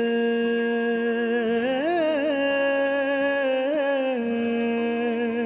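Bhajan singer holding one long wordless note, with a few small melodic turns in the middle before it settles and fades near the end.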